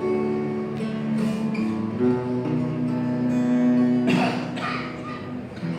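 Instrumental passage of acoustic guitar and cello: the guitar is strummed and plucked while the cello holds long notes, and nobody sings. A strong strummed chord comes about four seconds in.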